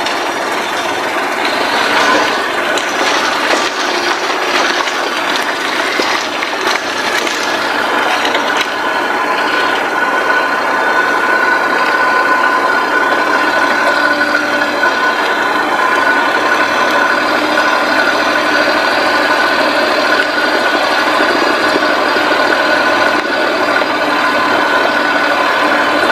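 Kei truck driving slowly over rough ground, heard close to the front wheel: the small engine running, with the body and suspension rattling. For the first several seconds the tyres churn through mud and puddle water; after that the truck rolls on a dry dirt road and a faint steady whine comes through.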